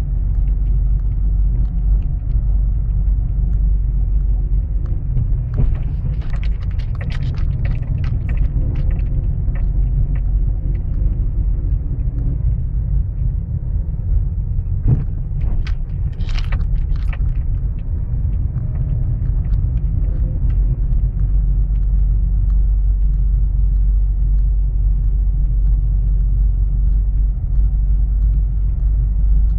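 Steady low rumble of a car driving slowly over a concrete block-paved street, as heard from on board. Scattered clicks and rattles come through about six to nine seconds in and again around fifteen to seventeen seconds.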